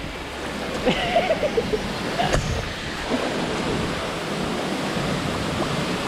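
Steady rush of a waterfall stream pouring over rocks. A short voice sound comes about a second in, and a single sharp knock a little past two seconds.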